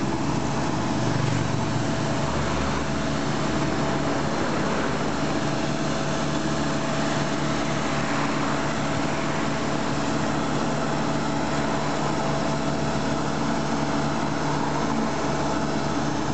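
The engine of a road construction machine running at a steady speed, giving an even hum with no change in pitch.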